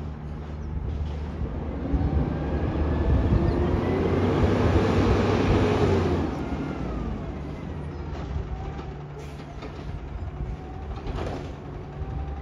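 Garbage truck engine pulling away, getting louder for a few seconds with its pitch rising, then easing back to a lower steady run as the truck slows. There is a brief sharp noise near the end.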